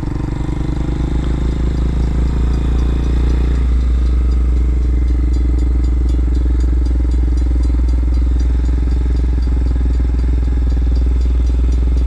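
RPS Hawk-X 250 dual-sport motorcycle's single-cylinder engine running steadily at low speed, heard from the rider's seat. Its note changes slightly about four seconds in.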